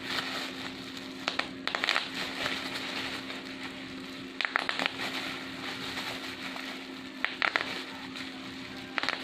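Bubble wrap being handled and squeezed: continuous crinkling of the plastic, broken by about five quick runs of sharp pops as bubbles burst.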